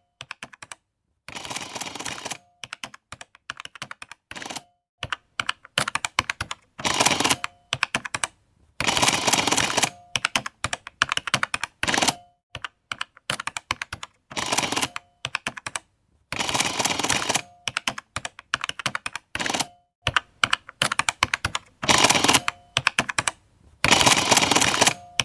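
Printing calculator in use: runs of rapid clicking key presses, broken by short pauses and by louder stretches of about a second of the printing mechanism running.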